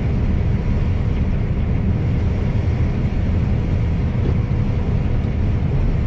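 John Deere combine harvester running while cutting beans, heard from inside the cab: a steady low drone of engine and machinery with a faint even hum above it.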